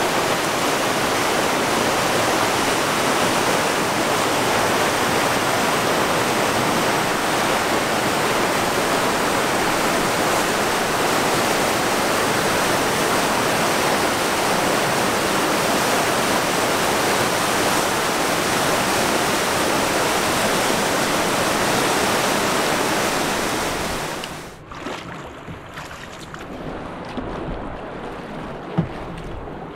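Steady, loud rush of Class 3 whitewater rapids on a river. About 24 seconds in it cuts off abruptly to much quieter water sounds, with a single click near the end.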